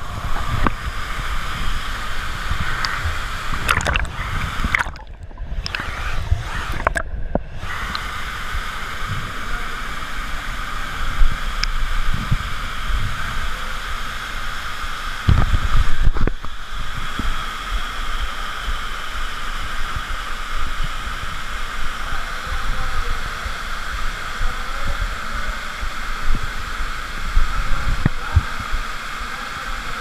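Steady rush of an underground waterfall pouring into a cave pool, with water gurgling and sloshing close by. About halfway through comes a louder stretch of splashing with a few low knocks.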